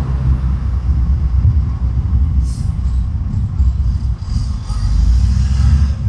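A loud, steady low rumble at a highway roadside that wavers in loudness and has no clear engine tone.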